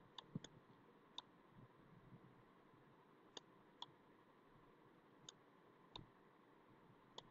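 Faint clicks from the pointing device used to handwrite on the screen, about eight sharp, irregularly spaced clicks over near silence.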